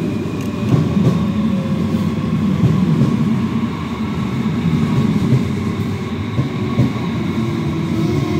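Red electric S-Bahn commuter train moving past close along the platform: a steady rumble of wheels on rails, with a few faint whining tones above it.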